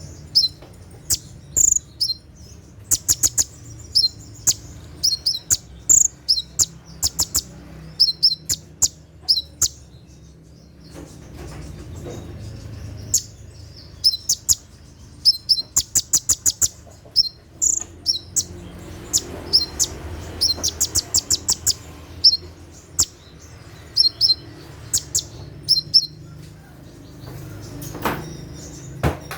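Olive-backed sunbird (konin) singing its rapid-fire 'tembakan' song: sharp, high-pitched chips and quick ticking trills delivered in bursts, with a few brief pauses.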